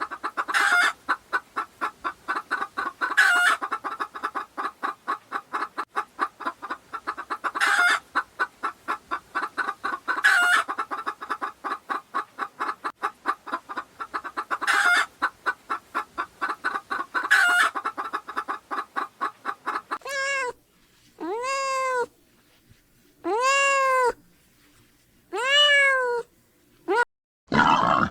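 Chickens clucking in a fast, even run with a louder squawk every couple of seconds, then a cat meowing four times, each meow rising and then falling in pitch.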